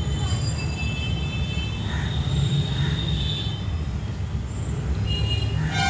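Whole lote fish (Bombay duck) frying in hot oil in a nonstick karai, a steady sizzle over a low rumble. The fish are browned and nearly done.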